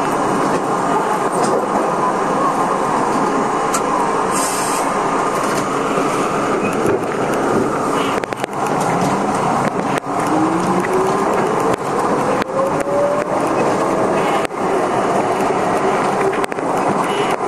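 R32 subway train running underground, a loud steady rumble; from about eight seconds in, a whine rises in pitch for several seconds as the train accelerates out of the station into the tunnel, with occasional sharp clicks of wheels over the rails.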